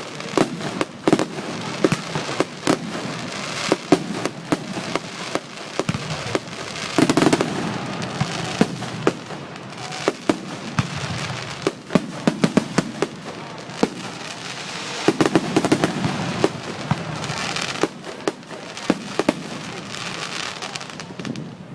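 Fireworks going off: a steady run of sharp pops and bangs with crackling, thickest a few times about 7, 10 and 15 seconds in.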